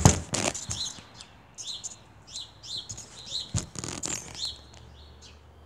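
Thuds of impacts on a trampoline mat, the loudest right at the start and another about three and a half seconds in. Between them a small bird chirps repeatedly, short high falling chirps a few times a second.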